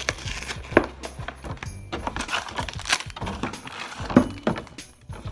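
Cardboard gingerbread house kit box being torn open and its plastic-wrapped pieces pulled out onto a wooden table: tearing, crinkling and several sharp knocks.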